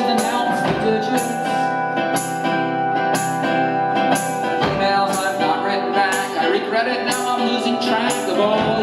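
Live band playing: guitar, bass, keyboard and drums with a steady beat, a cymbal-like hit about once a second over held keyboard tones.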